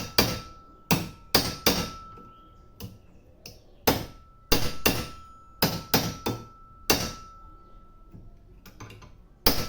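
Sharp metal-on-metal knocks, about a dozen at an uneven pace, some in quick runs: a new bearing being tapped into its seat in an Electrolux LTE12 washing machine's drum bearing housing, struck through the old bearing used as a driver.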